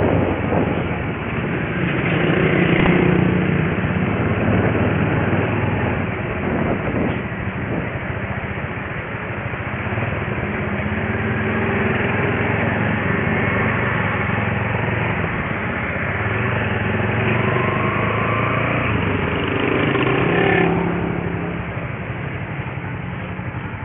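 Street traffic: small motorcycle and motorcycle-rickshaw engines running close by, with other vehicles passing.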